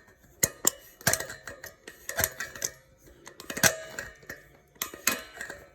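Irregular metallic clicks and taps from a tool working against a welding CO2 regulator's threaded insert as it is turned loose by hand, about a dozen sharp clicks, some with a brief ring.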